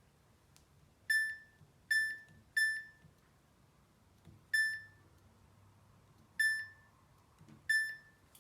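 Samsung washing machine's control panel beeping as its program dial is turned: six short, identical electronic beeps at uneven intervals, one for each program step.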